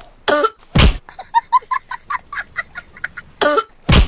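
A person coughing in short, hard bursts, about a second in and again near the end. Between the coughs comes a quick run of short, high-pitched clucking sounds, about five a second.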